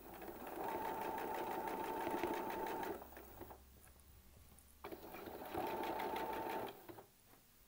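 Electric domestic sewing machine stitching a quilt sandwich in two runs: about three seconds, a pause of nearly two seconds, then about two seconds more.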